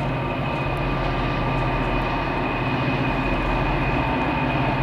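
Eight Norfolk Southern diesel locomotives of a helper set running together, a steady engine drone with a few constant tones over it.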